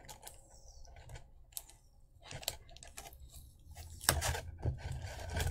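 Small plastic Nendoroid figure parts clicking and tapping as they are handled and fitted together, with a busier run of clicks from about four seconds in.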